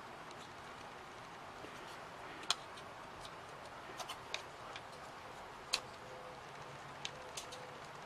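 Light clicks and taps of thin laser-cut MDF pieces being handled and fitted together, about six separate clicks over a faint steady hiss.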